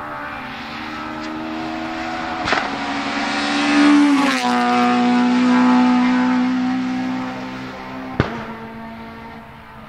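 Naturally aspirated Honda K20 VTEC four-cylinder of a Civic Type R EP3 race car accelerating hard. The engine note climbs as the car approaches, drops sharply in pitch as it passes close by about four seconds in, then holds steady and fades as it pulls away. There is a sharp crack about two and a half seconds in and another near the end.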